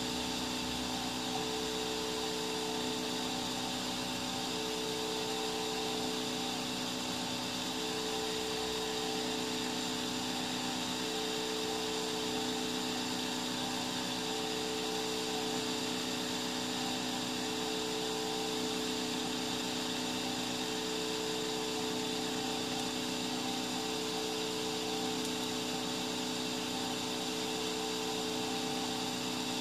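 A 3D printer extruding filament: a steady mechanical whir and hiss with several fixed humming tones, and a whining tone that comes and goes about every three seconds.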